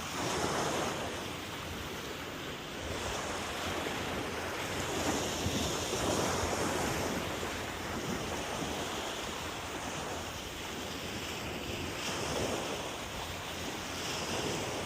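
Steady wind blowing on the microphone over the wash of sea waves, swelling and easing slowly.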